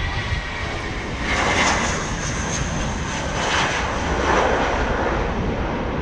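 Jet engines of an Airbus A320 departing at takeoff power: a loud, steady roar with a deep rumble and a faint high whine, swelling a little over a second in.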